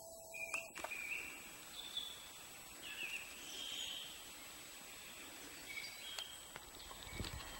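Faint forest ambience with a few short, high bird chirps scattered through it, over a thin steady high tone. Low rustling of branches or footsteps near the end.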